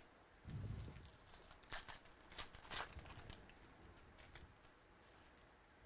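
Trading cards being handled: soft rustling and a series of light clicks and crinkles, mostly in the first half, then quieter.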